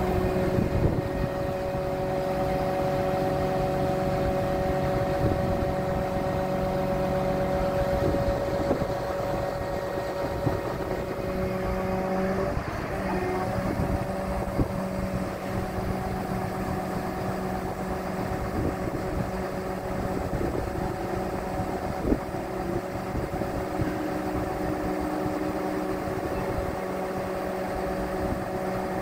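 Truck diesel engine running steadily to power an Altec aerial boom's hydraulics, with a steady hum and whine. The pitch dips and shifts briefly about halfway through, and there is one sharp tick about three-quarters of the way in.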